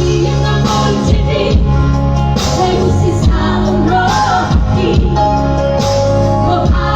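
A woman singing a Batak song over steady instrumental accompaniment, her voice rising and falling through the melody.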